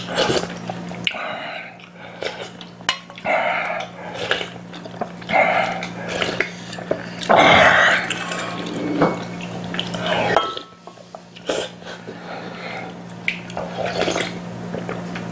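Slurping soup broth from a stainless-steel bowl held to the mouth, with utensils clicking against the metal bowl. The slurps come in irregular bursts, with one long, loud slurp about halfway through.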